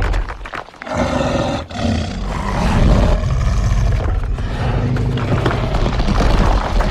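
Dinosaur creature sound effect: a Carnotaurus roaring, one short roar followed after a brief break by a long, drawn-out roar.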